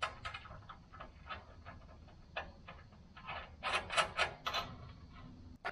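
Hand tools clicking and ticking on metal in a run of irregular light clicks, with a louder cluster about four seconds in.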